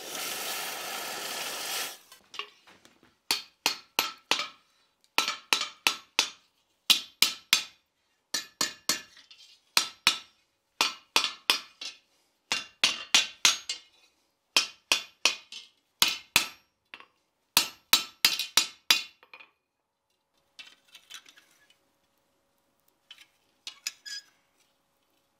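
Red-hot steel bar dipped into quench water, sizzling for about two seconds. Then a hand hammer strikes the hot bar on the steel anvil in quick groups of three to five ringing blows, rolling a scroll into its end. Near the end come a few light metal clinks as the scroll is handled with tongs.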